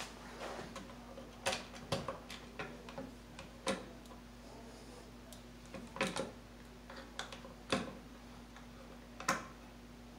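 Irregular clicks and light knocks from hands and a screwdriver working cable into a blue plastic electrical box mounted on an overhead joist, about seven spread over several seconds. A faint steady hum runs underneath.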